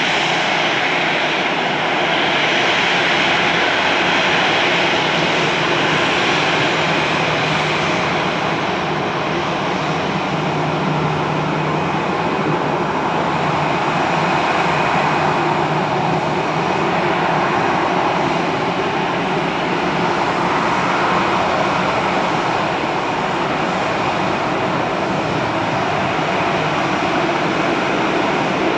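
Jet airliner engines running loud and steady, a dense rushing noise with a faint low hum underneath.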